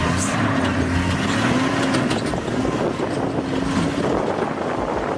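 Engine of a safari vehicle running steadily under a rushing noise, with a faint low hum that wavers in pitch.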